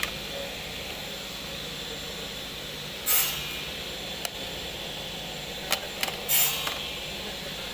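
Picture frames being handled: two brief swishing scrapes as frames slide against each other, about three seconds in and again near six and a half seconds, and a few light knocks, over a steady background hum.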